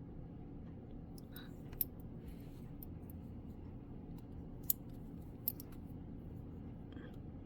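A few light, sharp clicks and taps of metal bolo-tie pieces being handled and set down, over a low steady hum.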